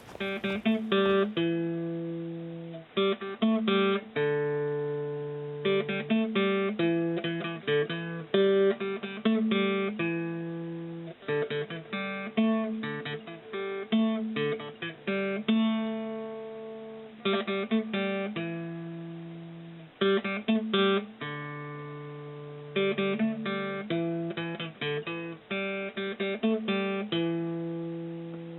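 Acoustic guitar music, picked notes and strummed chords ringing and fading in repeating phrases.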